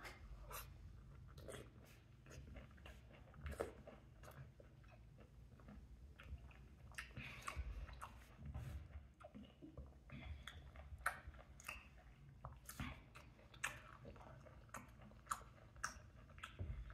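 Faint chewing and biting of mango pieces: a scatter of small, irregular mouth clicks.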